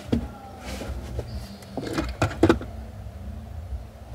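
Handling noises as car floor mats are pulled out: a few sharp knocks and rustles, loudest in a cluster about two seconds in, over a steady low hum.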